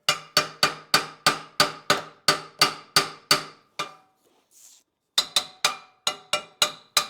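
Hammer striking metal in quick, evenly spaced blows, about three a second, each strike ringing; about a dozen blows, a pause of a little over a second, then another run of blows.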